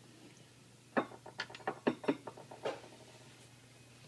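A quick run of about nine light knocks and clicks, starting about a second in and lasting a little under two seconds.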